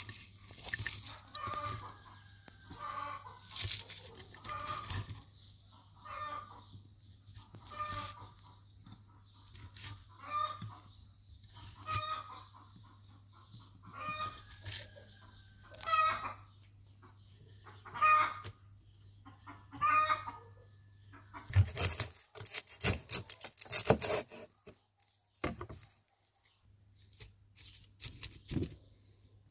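A chicken clucking, short calls every second or two. Near the end comes a brief flurry of sharp clicks and rustles from food and the clay pot being handled.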